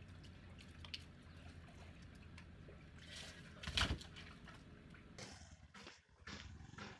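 Faint steady hum, then a brief thud about four seconds in as a person falls flat onto a concrete pool deck.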